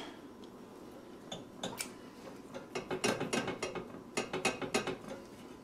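Metal spoon scraping and clicking against a glass pie dish as crumbly, overcooked fudge is pressed down. A quick, irregular run of scrapes and clicks starts about a second in and gets busier after about three seconds.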